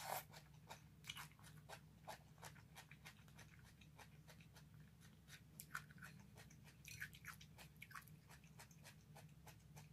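Faint, irregular wet clicks of someone chewing a mouthful of sautéed cabbage, over a low steady room hum.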